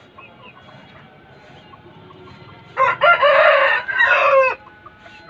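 Aseel rooster crowing once, a single loud crow of nearly two seconds starting about three seconds in, dropping in pitch at its end.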